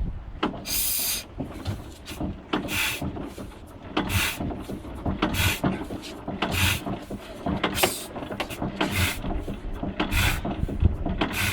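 Fairbanks Morse Z series 6hp stationary engine being turned over by hand without firing: a regular hiss about every second and a quarter, with low knocks. It won't start, which the owner blames on an overfilled starting reservoir.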